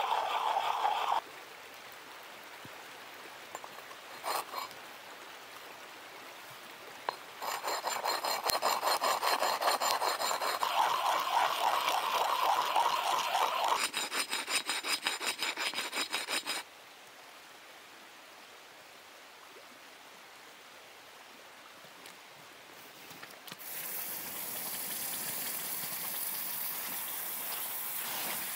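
Rhythmic rasping strokes, like filing or scraping by hand, in two stretches with quieter gaps and a few clicks between. Near the end a steady hiss sets in.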